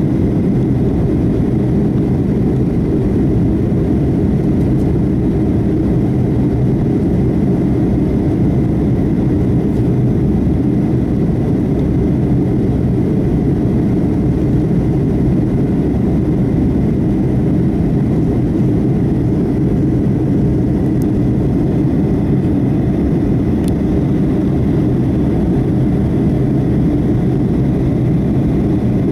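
Cabin noise inside a Boeing 757-223 during departure: a loud, steady rumble of jet engines and rushing air, with a faint constant whine above it.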